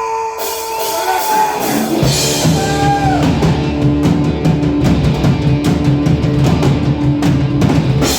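A rock band playing the opening of a heavy rock song: a held note fades over the first two seconds while cymbals start, then drums, bass and guitars come in together about two seconds in and play on steadily.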